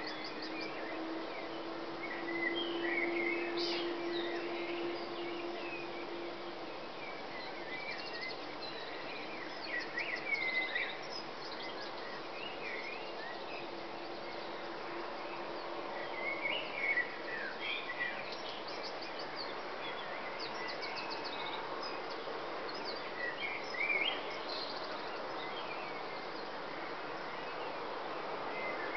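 Dawn chorus: many birds singing at once in short chirps, whistles and quick trills, over a steady background hiss and hum.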